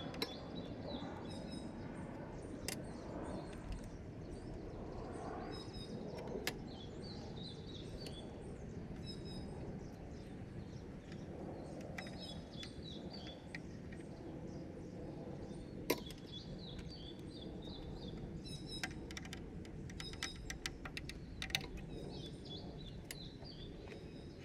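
Birds chirping over a steady low background noise, with scattered sharp clicks and taps from hands and tools working on the engine-bay plastics, most of them bunched together about twenty seconds in.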